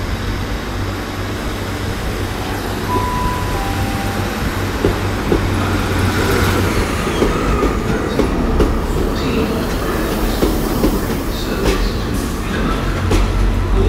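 A Class 150 and Class 143 Pacer diesel multiple-unit pair running slowly past along a station platform: a steady low diesel engine drone, with wheels clicking over the rail joints. The rumble grows louder near the end as the rear unit comes by.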